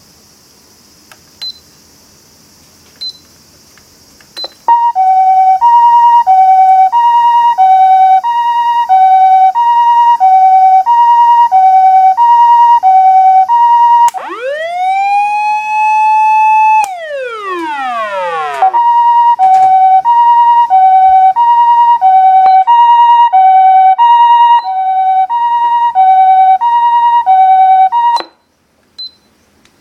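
Osaka Siren OPS-500 MK-9 electronic siren amplifier running its test mode through a loudspeaker: a few clicks, then a loud two-tone hi-lo siren alternating about once a second. Partway through, a wail rises, holds and falls away, then the hi-lo tone returns and cuts off suddenly near the end.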